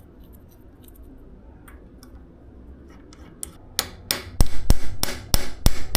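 Repeated hammer blows, about three a second, driving a tight star nut down into a suspension fork's steer tube; the blows start a little over halfway through, after a stretch of faint low hum.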